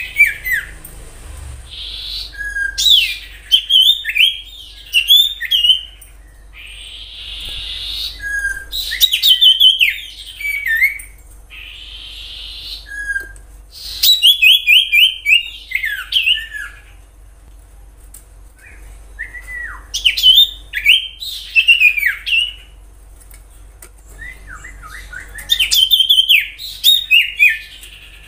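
Common iora singing: bursts of sharp, high whistled notes and quick chattering runs, each lasting a second or two, with pauses of a few seconds between them.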